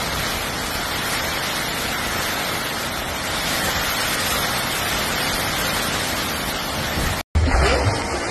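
Hurricane wind and heavy rain: a steady, even rushing noise. It cuts off abruptly about seven seconds in, and a deeper low rumble starts right after.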